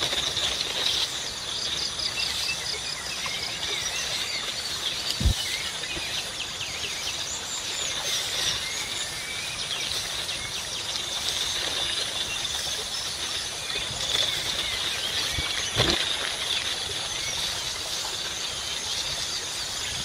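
Outdoor rural ambience: many small birds chirping over a steady high hum, with two brief knocks about five and sixteen seconds in.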